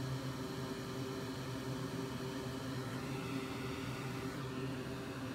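Steady electric fan or blower hum with a constant low drone, running evenly throughout.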